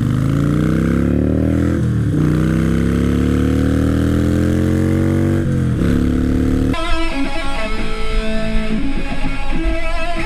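Harley-Davidson Iron 883's air-cooled V-twin engine accelerating through the gears, its pitch rising steadily and dropping at two upshifts, about two and five and a half seconds in. About seven seconds in, guitar music takes over.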